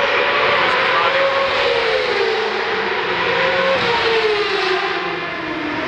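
Racing motorcycles lapping the circuit, loud: one engine note rises and falls slowly in pitch over a steady wash of engine noise.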